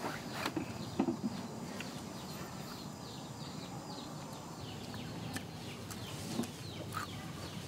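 Birds chirping: a run of short, falling chirps several times a second for a few seconds, with scattered clicks over a steady low rumble.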